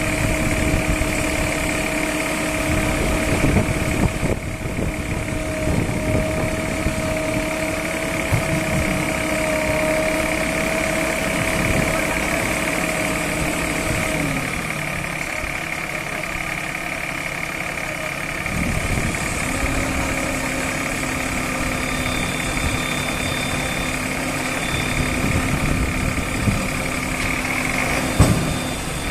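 Diesel engines of a backhoe loader and tractor running at a work site. The engine note drops about halfway through, and a few seconds later a new steady tone sets in. There is one sharp knock near the end.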